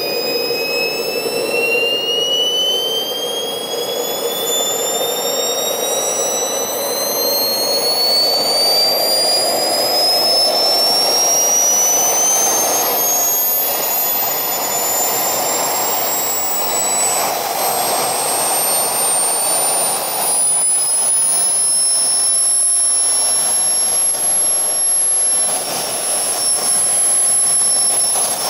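Swiwin 170 N model jet turbine spooling up through its start-up fuel ramp: a whine rises steadily in pitch over a rushing noise for about twenty seconds, then levels off into a steady high whine.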